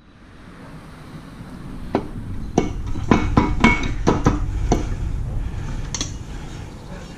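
Metal engine parts and tools clinking and clanking as they are handled: about eight sharp knocks between two and five seconds in and one more about six seconds in, over a steady low rumble.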